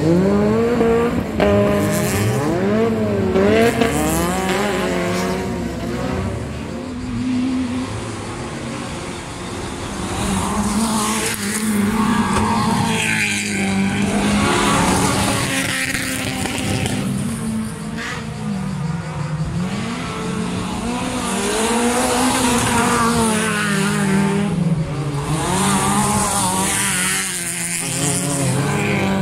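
Engines of several small hatchback autocross cars, Peugeot 205s and a 206, racing on a dirt track. Their pitch rises and falls again and again as the drivers rev hard and lift through a corner, with two or more cars heard at once.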